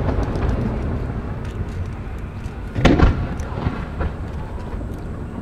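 Aerial fireworks shells bursting. The echo of a big boom dies away, then another sharp boom about three seconds in, followed by a couple of smaller pops, each trailing off in a rolling echo.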